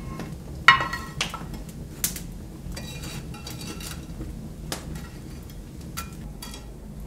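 A metal fire shovel scraping and clinking on a brick hearth as it scoops glowing embers, with scattered sharp metallic knocks, the loudest ringing briefly about a second in.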